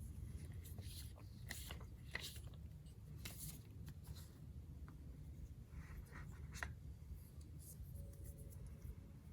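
Faint scratching, rubbing and small clicks of the AirPods Pro box and its paper packaging being handled and opened.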